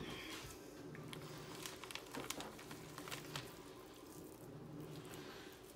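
Faint soft squishing and small clicks of hands working raw ground beef and rolling it into meatballs, over a low hum.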